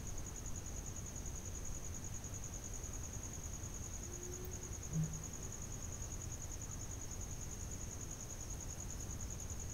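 Steady high-pitched insect trill, pulsing rapidly and evenly, over a low rumble, with one short low thud about five seconds in.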